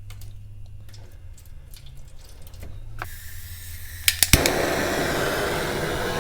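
Kerosene being poured out of a container and splashing. Faint handling ticks come first, then a sharp click about four seconds in, followed by a steady rushing pour.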